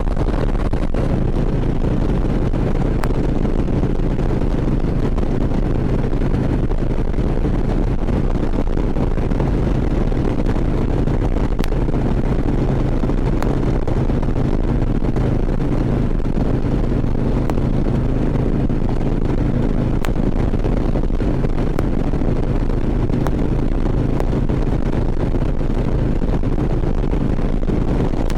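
Harley-Davidson V-twin engine running steadily while the motorcycle cruises at an even speed, with road and wind noise on a helmet-mounted microphone.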